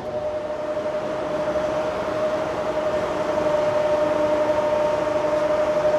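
A steady, single-pitched warning tone like a siren or horn, held unbroken for about six seconds over a steady mechanical rumble and hiss that slowly grows louder.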